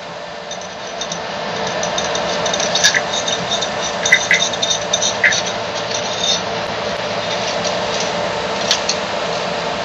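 3D printer filament being pulled out through the print head and its feed tube: a steady rustling hiss with a few light clicks.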